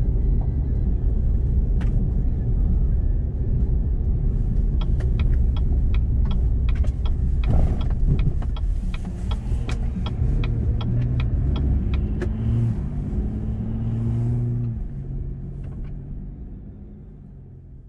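Chevrolet Colorado Z71 pickup driving, a steady low road and engine rumble heard inside the cab. Through the middle comes a run of evenly spaced clicks, then the engine note rises for a few seconds before the sound fades out near the end.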